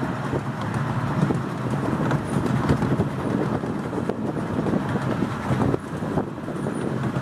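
Miniature steam train in motion, heard from one of its coaches: a steady rumble of wheels on the track with many small clicks and knocks.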